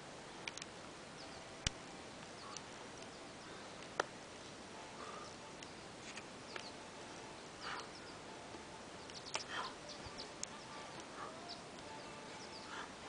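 Faint outdoor ambience: a steady low hiss with scattered short, high chirps and ticks, and two sharp clicks about one and a half and four seconds in.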